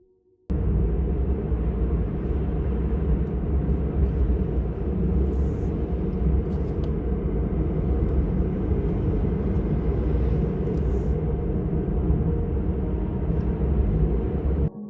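Steady low rumble of a car driving on the highway, engine and tyre noise with no distinct events, cutting in about half a second in after a brief silence.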